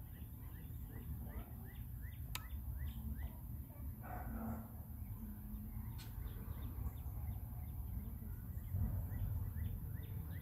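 Small birds chirping: a running series of short, falling chirps over a steady low rumble, with a couple of faint clicks.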